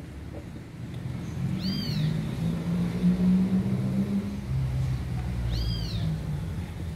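Low engine hum of a passing vehicle, swelling to its loudest about three seconds in and then fading, with two short high arching calls about four seconds apart, once near the start and once near the end.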